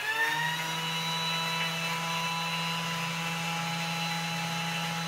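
Thermomix TM5 running at top speed (speed 10), its blades milling granulated sugar into icing sugar. The motor finishes spinning up with a rising whine and settles about half a second in to a steady whine over the hiss of the sugar in the bowl.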